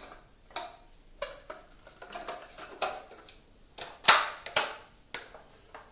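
A filament spool and its spool-holder parts being handled and fitted together: scattered light clicks and knocks, the two loudest about four seconds in, half a second apart.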